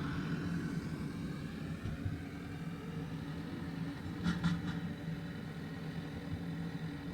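Steady low engine rumble of a vehicle, heard faintly, with a brief higher sound about four seconds in.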